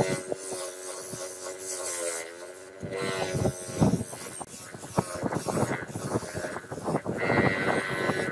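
Crown bench grinder running with a steady motor hum while a steel shaft is held and turned against its spinning wheel, giving a rough, uneven scraping. The hum dips in pitch briefly about two seconds in.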